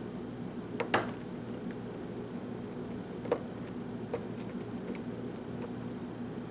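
Small metallic clicks of a short hook pick and tension wrench working the pin tumblers of a FAB 50 lock: a sharper double click about a second in, then a few lighter ticks spaced out. A steady low hum runs underneath.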